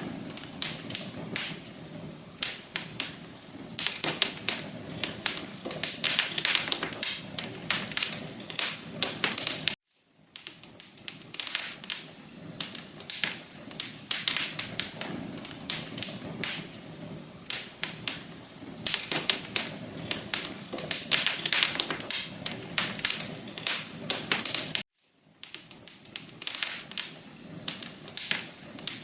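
Wood fire crackling in a fireplace: a dense, irregular run of sharp pops and snaps over a soft hiss. The sound cuts out abruptly for a fraction of a second twice, about ten seconds in and again about fifteen seconds later, then carries on.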